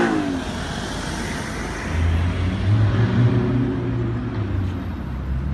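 Street traffic noise, with a car engine running at low revs as a steady low hum that comes in about two seconds in and eases off a couple of seconds later.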